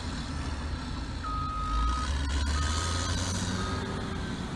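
Diesel engine of a Caterpillar 12K motor grader running, with a heavy machine's reversing alarm sounding over it: one longer beep about a second in, then a few shorter ones.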